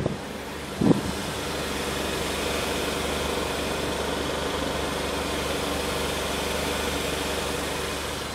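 2013 Kia Sorento's 2.4-litre inline-four petrol engine idling steadily, heard from under the rear of the car near the exhaust muffler. A short thump about a second in.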